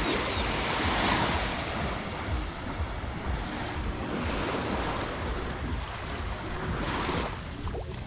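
Small waves washing up on a sandy beach, swelling about a second in and again near the end, with wind rumbling on the microphone.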